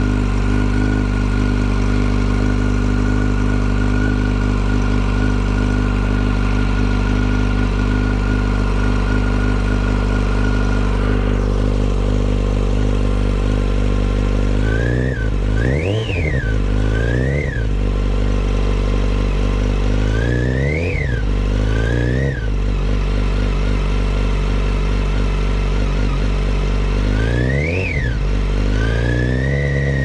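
2008 Yamaha FZ1's inline-four engine idling with a steady whine, then blipped in several short revs in the second half, the pitch rising and falling with each. The whine is loudest at the clutch cover, which the owner hopes means failed clutch basket bearings.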